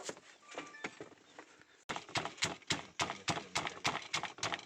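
Knife chopping pork on a chopping board, cutting it coarsely for a stir-fry: a few scattered strokes, then from about two seconds in a quick, even run of about four or five strokes a second.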